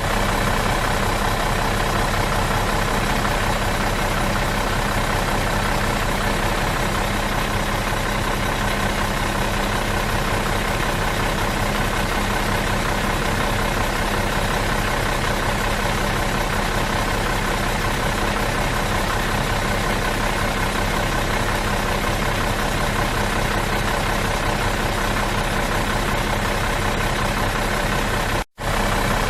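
Stationary bus with its engine idling, a steady unchanging rumble; the sound cuts out for an instant near the end.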